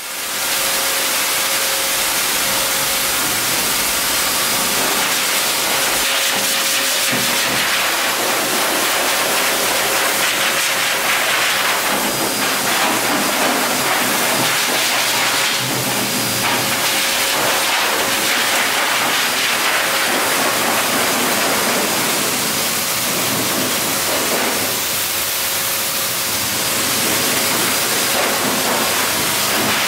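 Wall-mounted high-velocity pet dryer blowing air through its hose and nozzle. It spins up right at the start, then gives a loud, steady rush of air that shifts a little as the nozzle moves over the dog's coat.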